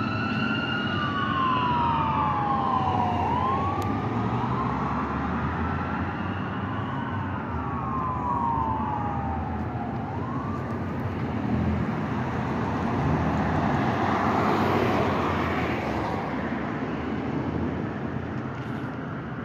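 Fire engine's electronic siren wailing, each rise and fall taking about three seconds, growing fainter as the engine drives away and gone about halfway through. Steady street traffic noise continues after it.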